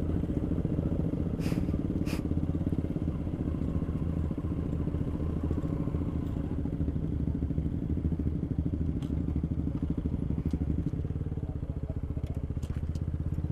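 Honda Supra X 125's single-cylinder four-stroke engine running steadily under the rider. Two short sharp clicks come about one and a half and two seconds in.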